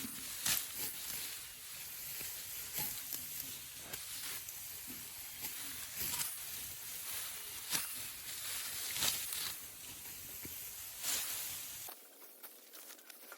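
Dry rice stalks rustling, with irregular crisp crackles and snaps. Near the end the sound cuts to a thinner, quieter rustle.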